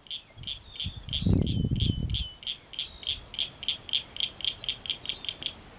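A small animal's call: short high chirps repeated about five times a second, quickening in the second half. About a second in, a low rumble is the loudest sound.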